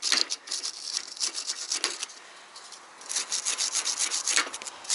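Rapid scrubbing strokes as rust is rubbed off a rusty bicycle pedal bearing part by hand, pausing for about a second midway before going on.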